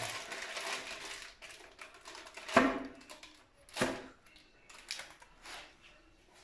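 Glass baking dish being handled over bread dough on a parchment-lined baking tray: two knocks of glass on the tray, a little over a second apart, with lighter taps and parchment paper rustling around them.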